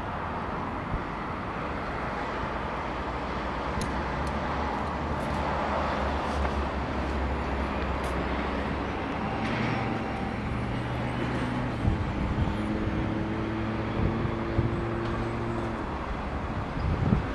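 Diesel locomotive of an approaching coal train: a steady low engine drone with a few held low tones, growing slightly louder as it nears.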